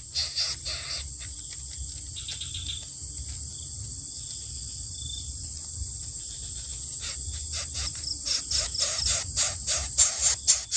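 Steady high-pitched insect drone over a faint low rumble. A jingling, rhythmic music beat fades out about a second in and comes back in the last few seconds.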